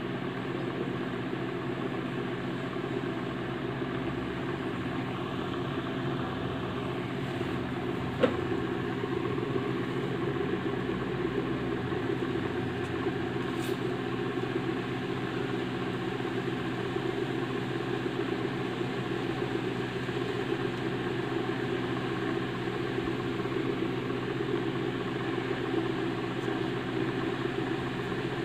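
Small 5-volt DC motor salvaged from an old CD drive running steadily, driving a belt to a large pulley wheel: a continuous whirring hum. A single sharp click about eight seconds in.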